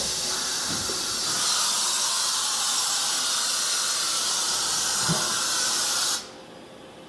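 Compressed air hissing steadily for about six seconds, then cutting off suddenly, with low knocks about a second in and near the end: the air blow of an automatic tool change on a Mori Seiki NT4300 DCG's articulating milling head.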